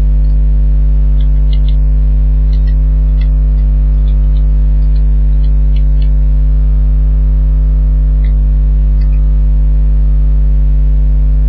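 Loud, steady electrical mains hum with a stack of overtones. Faint, irregular computer-keyboard keystroke clicks sound through most of it as a username is typed.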